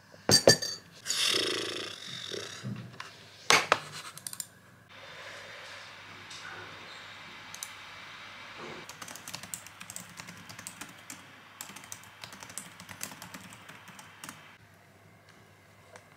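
Typing on a laptop keyboard: rapid scattered key clicks over a faint steady hiss, densest in the second half. In the first few seconds a few sharp knocks, the loudest sounds here, come from a ceramic mug with a metal spoon in it being handled on the wooden desk.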